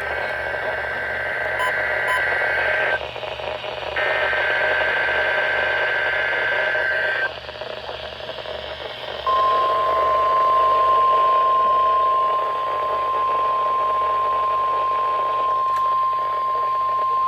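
NOAA Weather Radio required weekly test received with static hiss. Two bursts of warbling SAME digital header data, one ending about three seconds in and the next running from about four to seven seconds, then about nine seconds in the steady 1050 Hz warning alarm tone starts and holds.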